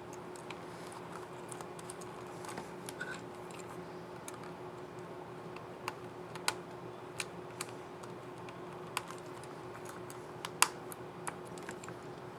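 Scattered plastic clicks of laptop keyboard keys being pressed on a Lenovo ThinkPad E15, irregular and sparse at first, then more frequent from about halfway, the loudest a little after ten seconds in. A faint steady hum runs underneath.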